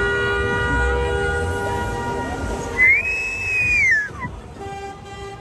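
A car horn held steadily, then a loud whistle about halfway through that rises, holds and slides down over about a second and a half.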